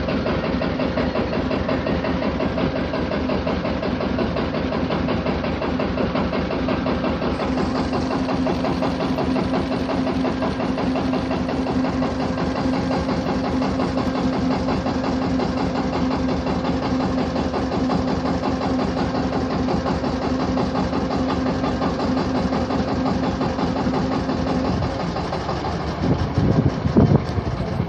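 A small engine running steadily under way, its firing even and unchanging; near the end its tone fades and a few louder, uneven low bumps come through.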